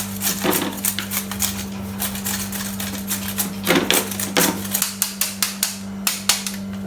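Kitchen knife chopping vegetables on a cutting board: quick, uneven strokes, several a second, over a steady low hum.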